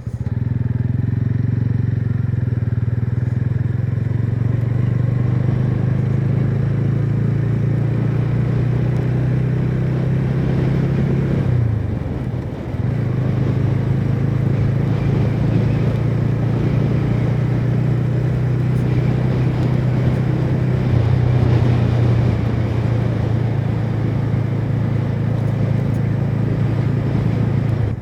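TVS Ronin motorcycle's single-cylinder engine through its stock exhaust, running at steady revs under way. The engine note briefly drops out about halfway through, then picks up again and holds steady.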